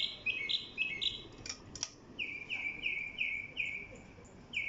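A songbird singing: a run of short, clear notes that each slide downward, about three a second, with a pause in the middle. Two sharp clicks sound in the pause.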